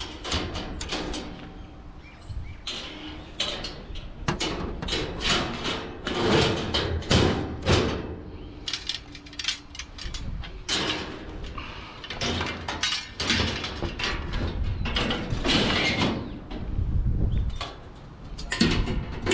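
Metal scrap being pulled from a kerbside rubbish pile and handled, with repeated clanks, knocks and rattles.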